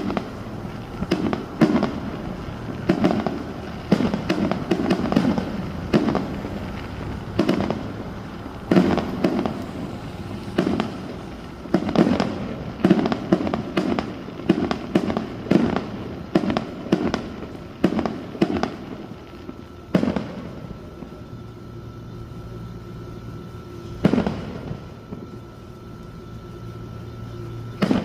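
Fireworks bursting overhead in a rapid, continuous barrage of bangs and pops, several a second. About two-thirds of the way through they thin out to a few single booms a few seconds apart.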